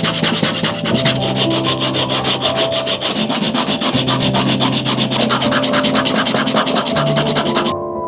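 Fast, even back-and-forth abrasive strokes of hand-shaping an arrow point, about eight strokes a second, stopping abruptly near the end. Background music with held notes plays underneath.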